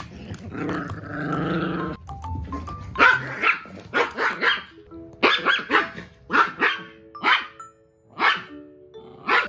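Two small poodle-mix dogs, a Maltipoo and a Pomapoo puppy, play-fighting over a toy. Growling for the first two seconds, then a quick run of short, sharp barks about half a second to a second apart.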